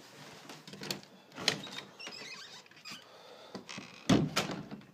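A door to the deck being opened and shut to let a dog out: a few clicks and knocks, then a heavy thump about four seconds in as it closes.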